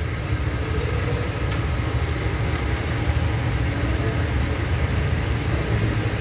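Jeepney diesel engine idling: a steady, low, slightly pulsing rumble.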